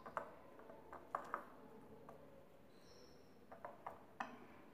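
Faint, scattered clicks and taps of a steel spoon against a glass bowl as a damp bread-crumb and milk-powder mixture is stirred into dough. The taps come in small clusters, about a second in and again near the end, over low room hiss.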